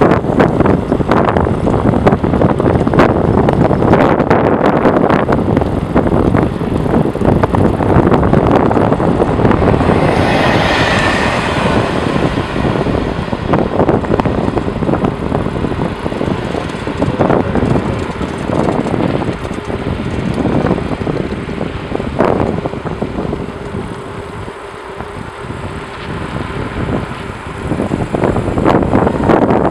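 Wind buffeting the microphone of a camera moving along with a bicycle ride, a loud continuous rumble with irregular crackles, mixed with tyre and road noise. A higher hiss swells briefly about ten seconds in.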